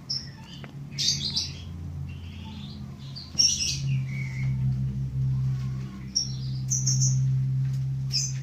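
Small birds chirping in short, high, repeated calls. Underneath them runs a steady low hum, from about a second in until just past the end.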